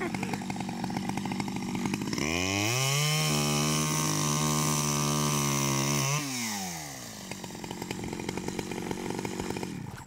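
Small petrol engine idling, revved up about two seconds in, held at full speed for about four seconds, then let back down to idle.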